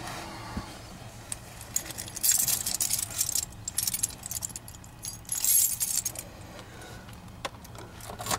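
Light metallic jingling and clicking in two bursts, about two seconds in and again near five and a half seconds, as parts are handled at the dashboard with the keys in the ignition. A faint steady low hum runs underneath.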